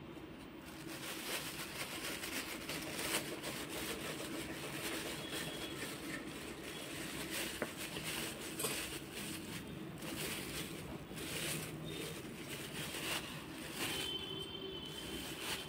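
Thin plastic bags crinkling and rustling as they are handled and opened, with many small crackles.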